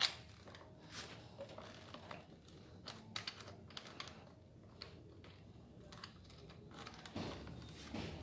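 Small, scattered clicks and taps of fingers and screws working on the plastic recoil starter cover of a Honda UMR435T backpack brush cutter, as its screws are fitted and fastened. The sharpest click comes right at the start.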